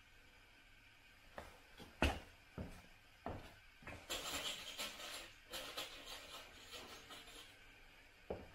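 Handling of a camper roof bunk's metal frame and canvas: several sharp knocks, the loudest about two seconds in, then a few seconds of canvas rubbing and rustling, and more knocks near the end.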